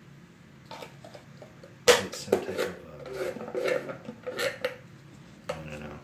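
Thin clear plastic cup lid and drinking straw being handled: a few light clicks, then a sharp click about two seconds in and a run of plastic crackles and clicks.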